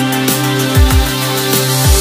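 Loud electronic background music with deep bass hits that slide down in pitch, held synth notes and a bright hissing top.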